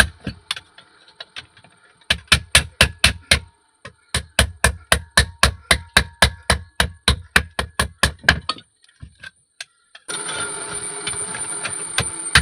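Rapid, evenly spaced hammer blows on metal, about five a second, in two runs with short gaps between them. Near the end the blows stop and a steady rushing noise takes over.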